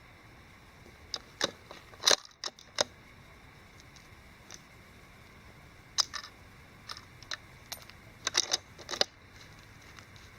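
Irregular sharp clicks and knocks of something being handled, loudest about two seconds in, with a quick cluster of clicks near the end.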